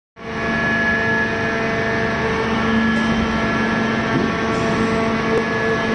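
Hydraulic power unit of a 3000-ton free forging press running with a steady, unchanging hum and whine made of several tones.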